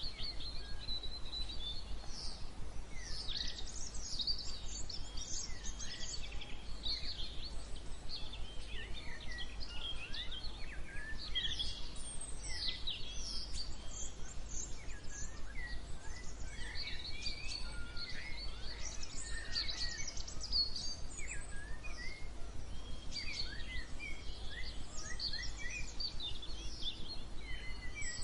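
A chorus of songbirds chirping and singing, many short high chirps and whistled glides overlapping without pause, over a steady low rumble.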